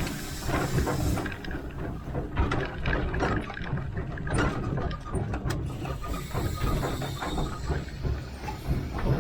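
Small narrow-gauge 0-4-0T steam locomotive under way: a low rumble of wheels on the rails with irregular clanking and rattling of its running gear.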